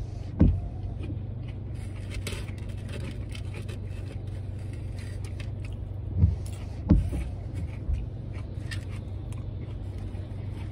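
A person chewing food (fries and a shrimp po'boy), with faint mouth clicks, over a steady low hum in a car cabin. A few low thumps come about half a second in and again between six and eight seconds in.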